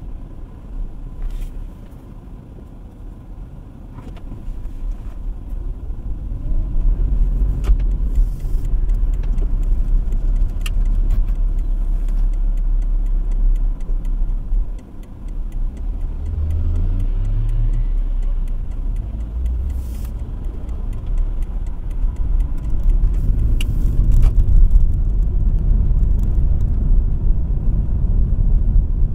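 Car driving in city traffic, heard from inside the cabin: a low engine and road rumble, quieter at first while the car waits, growing louder as it pulls away. About halfway through the sound drops briefly, then the engine pitch climbs in steps as the car accelerates, before it settles into a steady cruise.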